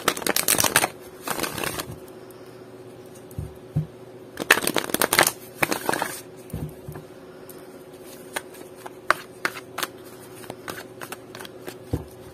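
A deck of oracle cards being shuffled by hand. Riffle shuffles make a rapid fluttering burst at the start, another about a second later and two more between about four and six seconds in. After that come single sharp card snaps and taps from overhand shuffling, through to near the end.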